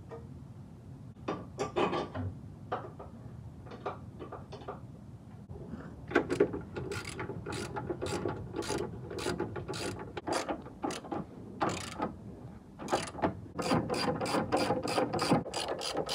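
Hand socket ratchet clicking as suspension bolts at the lower control arm and traction bar are tightened: a few scattered clicks at first, then a steady run of clicks from about six seconds in that quickens near the end.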